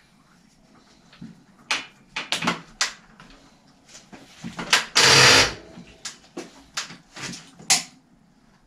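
Workshop handling noises: a string of sharp clicks and knocks from hand tools and parts at a bicycle in a repair stand, with one louder half-second rattle about five seconds in.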